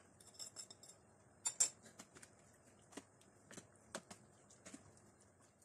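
Metal spoon and plate clicking and scraping against a plastic tub while spices and yogurt are mixed into beef slices for a marinade: scattered faint clicks, the loudest about one and a half seconds in.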